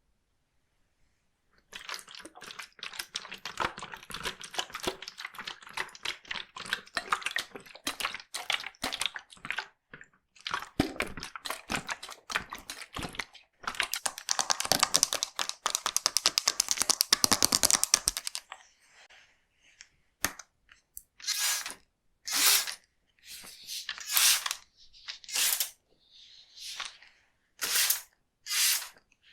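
Close-miked scissors snipping hair in quick runs of crisp clicks, densest and loudest past the middle, then a string of separate short swishing strokes about once a second.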